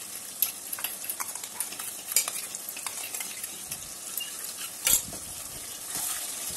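Onion, capsicum and tomato sizzling in oil in a metal kadai, with a metal spatula scraping and knocking against the pan as freshly added ginger-garlic paste is stirred in. The loudest knocks come about two seconds in and just before five seconds in.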